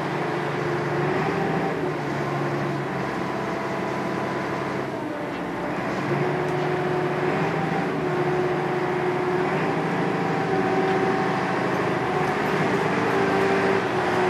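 Small harbour ferry's diesel engine running steadily, its note dipping briefly about five seconds in and then settling at a slightly different pitch as the boat gets under way from the landing.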